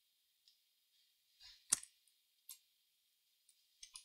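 Near silence broken by a few brief clicks as a bench digital multimeter is switched from continuity to DC voltage mode. The sharpest click comes a little under two seconds in, with fainter ticks about half a second later and twice near the end.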